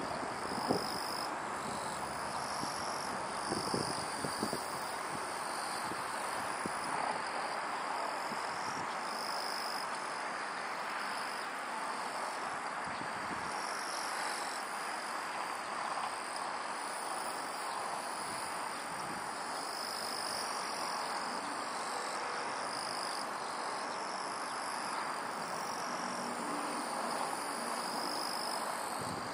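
Steady chorus of calling animals: high, pulsing calls that overlap and repeat every second or so over an even hiss, with a few faint knocks in the first few seconds.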